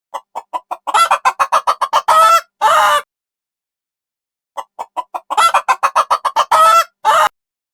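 Hen cackling: a run of short clucks that quicken and end in two longer squawks, heard twice, the second bout starting about four and a half seconds in.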